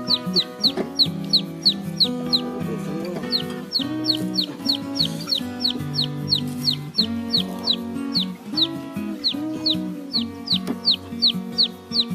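A young chick peeping over and over, short high falling peeps about four a second with a couple of brief pauses, over background music with a stepped melody.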